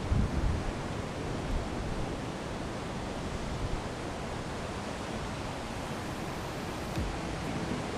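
Steady wash of ocean surf breaking on the beach, with a few low wind gusts hitting the microphone near the start.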